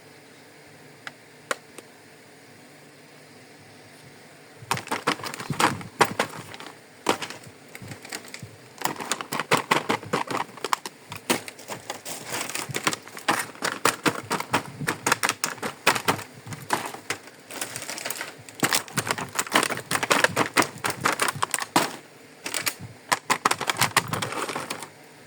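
Small plastic toy kitchen pieces being handled and unboxed: a couple of single clicks, then from about five seconds in a dense run of rapid plastic clicks and crackles.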